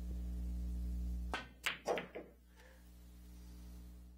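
Pool shot struck hard with draw, about a second and a half in: the cue tip cracks on the cue ball, the cue ball clacks into the object ball a moment later, and a few quicker knocks follow as the object ball drops into a corner pocket. A steady low hum runs under the first part and stops as the shot is played.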